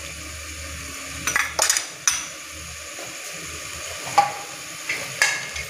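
Spiced pumpkin and toor dal sizzling as it roasts in an aluminium pressure cooker, with metal scraping and clinking against the pot several times. The sharpest clink comes about four seconds in.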